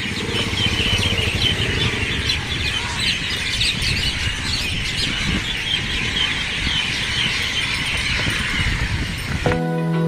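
Many birds chirping together over a steady low rumble of outdoor noise. Music starts suddenly near the end and the outdoor sound cuts off.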